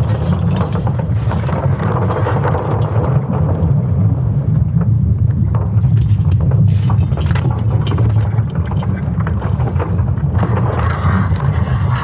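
ESA's sonification of Earth's magnetic field, built from Swarm satellite data: a deep, steady rumble with scattered crackles over it.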